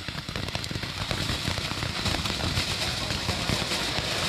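Ground fountain firework spraying sparks: a steady hiss thick with rapid crackling, growing louder as it burns.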